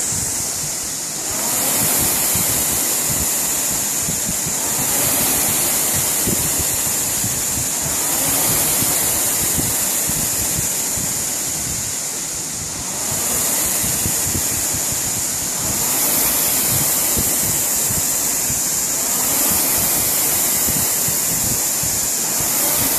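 Concept2 rowing machine's air-resistance flywheel whooshing as it is rowed, swelling with each drive stroke and easing off on the recovery, about one stroke every three and a half seconds (around 18 strokes a minute).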